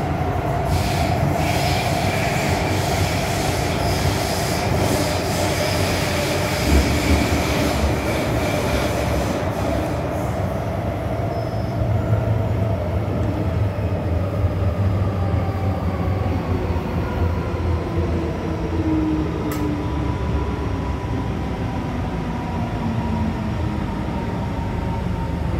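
MTR M-Train metro car braking into a station: the whine of its electric traction equipment falls steadily in pitch as the train slows, over the rumble of wheels on rail. On this car the falling whine, the 'ghost' sound that rail fans listen for, is a weakened one. A single sharp click comes about three-quarters of the way through.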